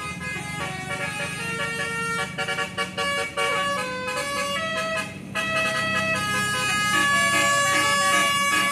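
Bus telolet horn, a Basuri multi-tone air horn, playing a tune: a run of steady notes stepping up and down in pitch, ending on a long held note. A bus engine hums underneath.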